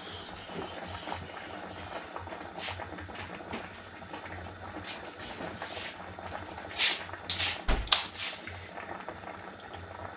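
Ring-pull drinks can being handled and opened: a cluster of sharp clicks and short hisses about seven seconds in, the loudest sounds, over a low steady hum and lighter handling clicks.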